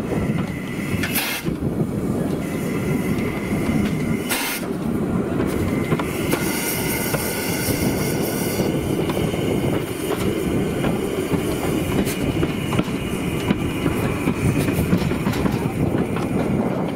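Replica Stephenson's Rocket steam locomotive running along the track, heard from its tender: a steady clatter of wheels and running gear on the rails. Steam hisses for a few seconds around the middle.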